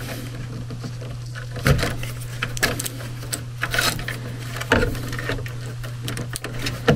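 Scattered clicks and small rattles of plastic wire-harness connectors and a screwdriver being handled inside an air handler cabinet, over a steady low hum.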